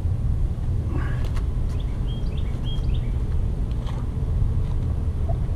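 A steady low rumble, with a few short bird chirps about two to three seconds in.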